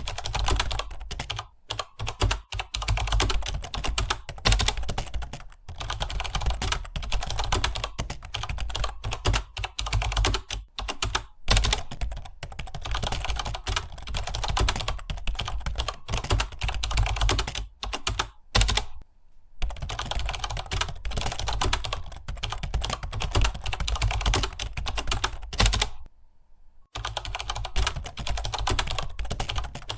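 Fast, continuous typing on a computer keyboard: a steady stream of key clicks with two brief pauses, one about two-thirds of the way through and one near the end. A steady low hum runs underneath.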